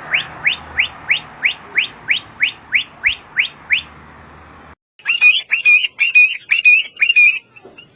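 Birds chirping: first one bird repeating a short upward-sweeping chirp about three times a second over a steady high whine, then, after an abrupt cut about halfway through, a different, louder and more varied warbling song.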